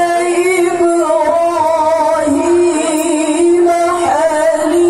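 A woman's voice chanting Quran recitation (tilawah) in long, ornamented held notes that step from pitch to pitch, amplified over a loudspeaker system.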